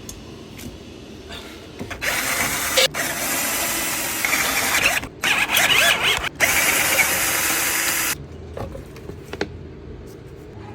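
A power tool running loudly in four bursts from about two to eight seconds in, with brief pauses between them, as fasteners are worked on during a brake job.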